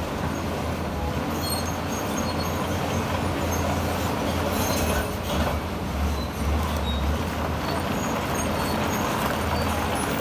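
Heavy diesel construction machinery running steadily with a low rumble, with short high metallic squeaks scattered through it.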